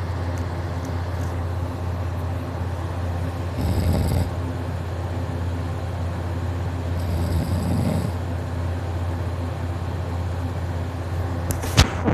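A man snoring loudly in deep sleep, two long rasping snores about three and a half seconds apart over a steady low hum. A sharp click sounds near the end.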